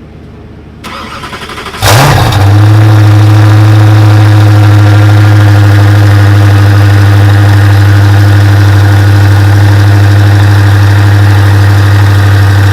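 A supercar's engine being started: the starter cranks about a second in, the engine catches with a brief loud burst just before two seconds, then settles into a loud, steady idle.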